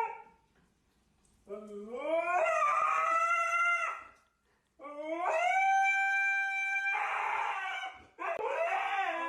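A dog howling: three long howls, each sliding up in pitch before it levels off, with short pauses between them.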